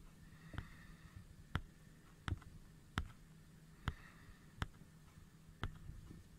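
A series of sharp, short mechanical clicks, seven in all, roughly one a second.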